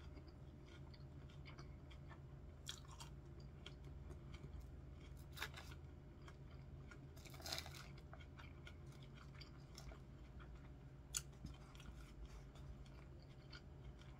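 Faint close-up chewing and crunching of a chicken salad with iceberg lettuce and bacon bits, with a few sharp clicks scattered through, one longer crackle about halfway.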